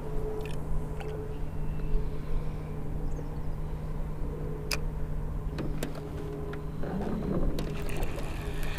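Electric bow-mount trolling motor running with a steady hum, a higher whine cutting in and out, and a few light clicks.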